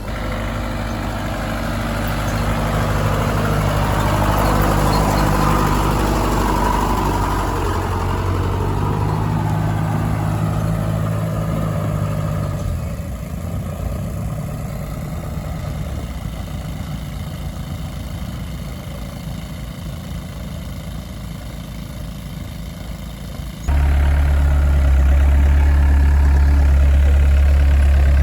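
Engine running steadily, swelling a little and then dropping back. A much louder, deeper engine sound cuts in suddenly near the end and keeps going.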